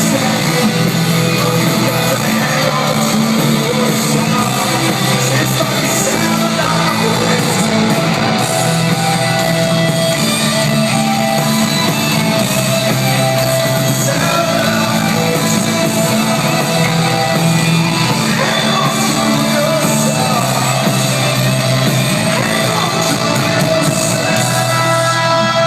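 Rock band playing live in an arena, with distorted electric guitars, bass and drums under a sung vocal line with shouts. The band plays loud and steady, with drum hits throughout.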